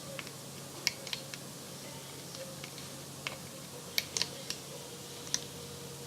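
Light clicks and taps of a crochet hook against the plastic pegs of a Rainbow Loom as rubber bands are hooked over, about seven scattered clicks, over a faint steady hum.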